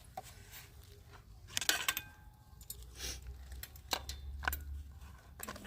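Scattered light metallic clinks and knocks of cooking utensils being handled, such as a spoon against a cooking pot, with the loudest cluster about a second and a half in.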